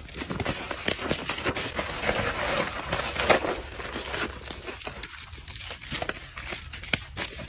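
Peanuts rattling in a cardboard box and plastic snack wrappers crinkling as monkeys rummage and grab at them: a dense run of small clicks and rustles.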